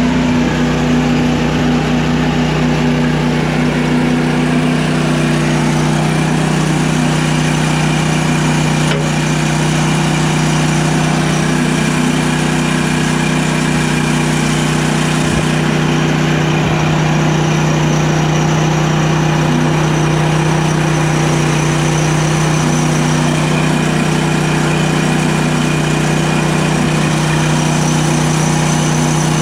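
Sawmill running steadily at an even pitch as it cuts through a log, a constant engine-and-blade hum with no labouring.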